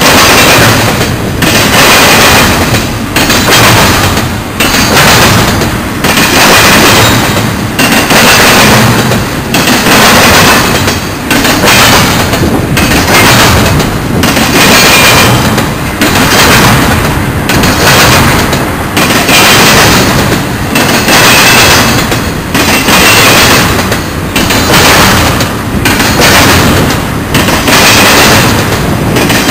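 Double-stack container train's wheels banging across a railroad diamond crossing: loud bursts of clatter repeating about every one and a half seconds as the cars roll over it.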